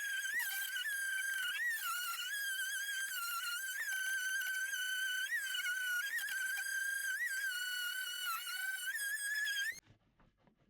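Electric power tool running with a steady high-pitched motor whine that dips briefly in pitch now and then, as if loaded against the work, then cuts off abruptly near the end.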